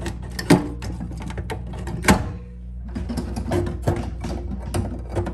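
Metal knocks and clunks as the old single-handle pull-out kitchen faucet is worked loose and lifted off the stainless steel sink deck: two louder knocks within the first two seconds, then a run of lighter clicks, over a steady low hum.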